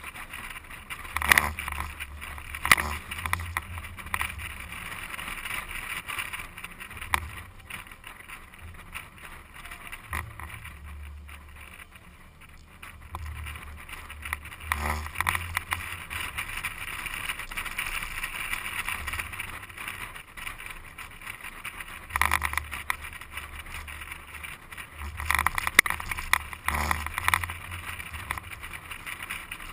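SUV driving fast over desert sand, heard from a camera mounted on the outside of the vehicle: a continuous rush of wind and tyre noise, with irregular low buffeting on the microphone and a few louder jolts.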